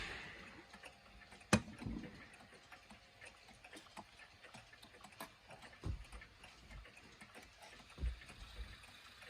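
Mechanical clock ticking faintly, with one sharp click about a second and a half in and a few soft knocks.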